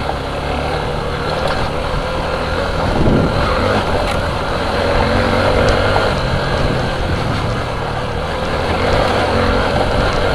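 Suzuki V-Strom 250 SX's single-cylinder engine running steadily as the motorcycle is ridden over a rough dirt track, with a rumble of tyres on loose ground and a few sharp clicks.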